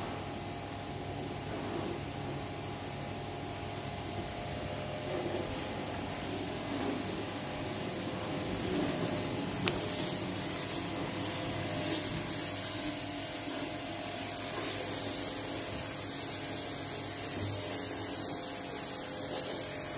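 Pressure washer running: a steady hiss of spray with a steady machine hum underneath, growing louder about halfway through.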